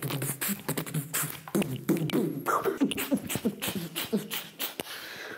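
Beatboxing: fast, irregular vocal percussion of clicks and snare-like hits mixed with short pitched vocal sounds, dying down near the end.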